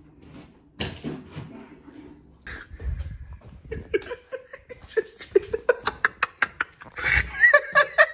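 A couple of dull knocks, then a person laughing in short, quickly repeated pulses that grow louder near the end.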